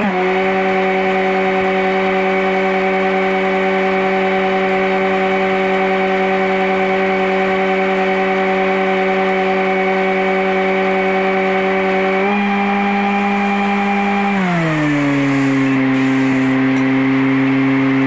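Engine running at a steady higher speed while a stick-welding arc crackles and hisses. About twelve seconds in the pitch steps up slightly, and a couple of seconds later the engine glides down to a lower idle, as an engine-driven welder does when the arc stops.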